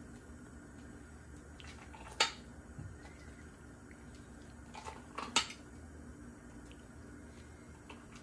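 Metal ladle clinking against a pot and a ceramic mug while thick atole is ladled into the mug: one sharp clink about two seconds in and a quick cluster of clinks around five seconds.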